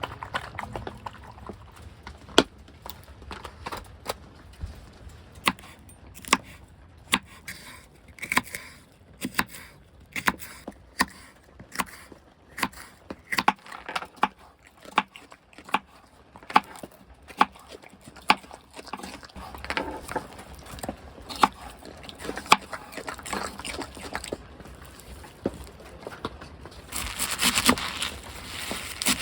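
Firewood crackling in a wood stove: sharp, irregular pops a second or so apart. Near the end comes a louder hiss of a second or two.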